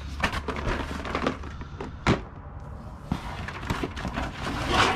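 Cardboard boxes and board-game boxes being rummaged through and shifted inside a cardboard carton: rustling and scraping with scattered knocks, a sharp thunk about two seconds in and a louder scrape near the end. A steady low hum runs underneath.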